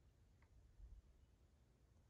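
Near silence: a faint low rumble, with one brief faint high note about half a second in.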